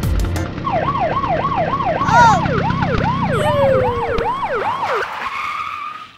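Police siren sound effect: quick repeated wails, each falling in pitch, about three a second, with a second siren overlapping, settling into a single held tone that fades out near the end.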